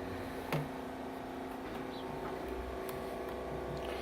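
Steady low electrical hum with several faint pitched tones, and one sharp click about half a second in.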